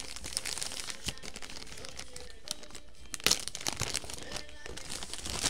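Clear plastic bag crinkling and crackling as it is handled, with the loudest crackle about three seconds in.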